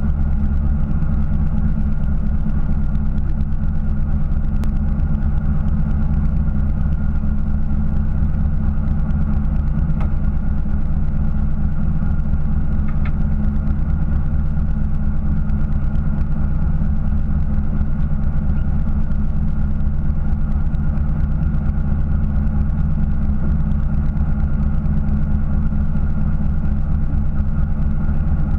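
Fishing boat's engine running steadily at idle, a constant low hum with no change in speed.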